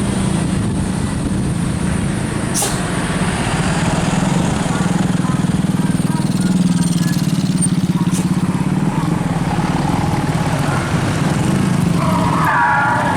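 A vehicle engine running steadily close by, with two sharp clicks, one about two and a half seconds in and one about eight seconds in.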